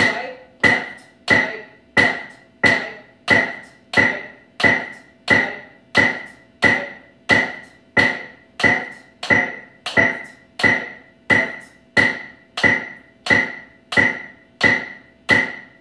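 Snare drum played as a single stroke roll, alternating right and left sticks, one hit per metronome click at 90 beats per minute. The hits are evenly spaced, about one and a half a second, each sounding together with the metronome's click.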